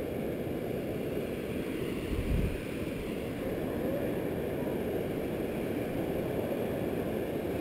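Steady, muffled rushing of river water pouring over rock, with one brief low thump a little over two seconds in.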